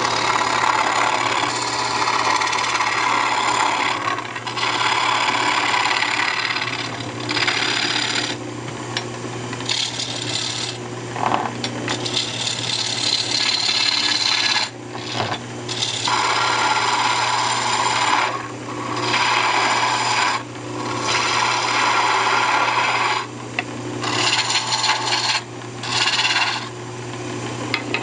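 Wood lathe running with a steady hum while a hand-held turning tool cuts a spinning walnut blank, truing it up round; the cutting comes in repeated passes of a few seconds each with short breaks between.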